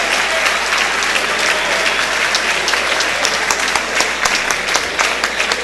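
Audience applauding: dense, steady clapping from a large crowd, thinning slightly near the end.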